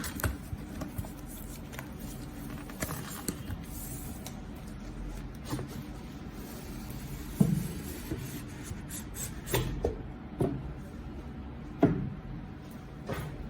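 Boxes and packaging being handled: scattered rubbing, rustling and light clicks, with a few louder knocks, four of them in the second half.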